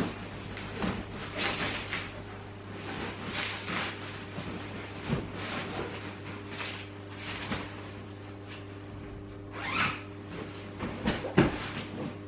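A string of short scraping and rustling handling noises, one or two a second, over a steady low hum, with a few louder knocks near the end.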